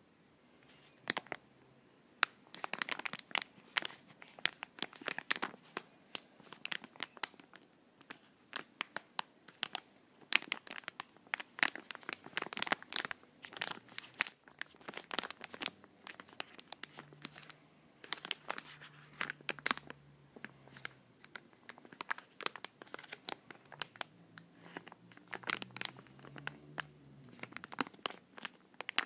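Soft plastic pack of make-up removal wipes being crinkled and squeezed by hand: irregular bursts of sharp crackles with short pauses, starting about a second in.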